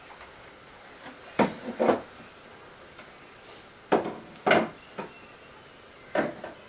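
Toy play kitchen being handled: sharp knocks of its parts, mostly in pairs about half a second apart, five in all.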